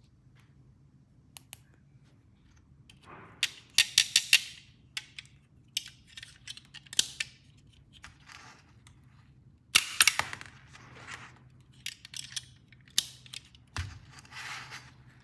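Plastic toy pieces and packaging being handled: sharp plastic clicks and snaps in small clusters, with brief crinkly rustles near the end.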